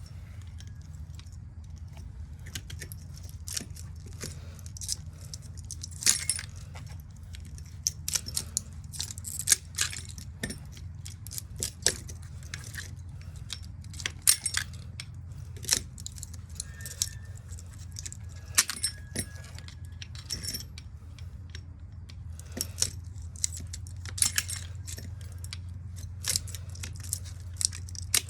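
Irregular metallic clinks and scrapes of hand tools and metal parts being worked while a ceiling fan motor is taken apart for its copper winding, over a steady low hum.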